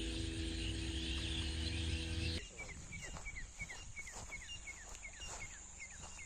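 A steady hum of several held tones, cut off abruptly about two seconds in. Then outdoor rural ambience follows: a bird repeating a short falling chirp about three times a second over a steady high insect trill.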